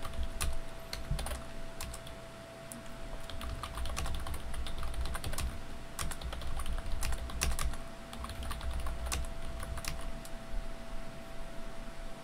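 Typing on a computer keyboard: irregular clicks of keys, with a faint steady hum underneath.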